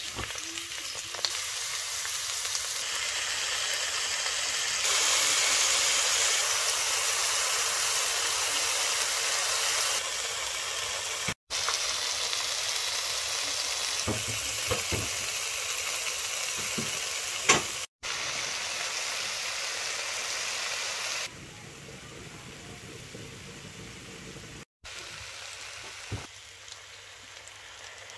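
Sliced onions, then carrots, tomato and potatoes, frying in vegetable oil in a pot: a steady sizzle, louder in the first half and quieter near the end. A few light knocks, typical of stirring with a utensil, come in the middle, and the sound cuts out sharply three times.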